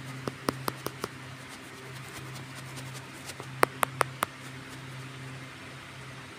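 Two quick runs of sharp clicks or taps, five in the first second and four more about three and a half seconds in, over a steady low hum.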